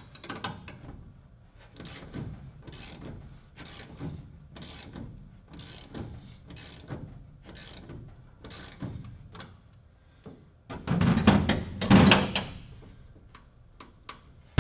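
Socket ratchet wrench clicking in about eight even strokes, roughly one a second, as it tightens a bolt on the aircraft's control stick linkage. A louder burst of rattling and knocking follows later.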